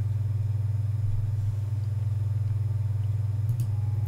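Steady low hum with a faint click about three and a half seconds in.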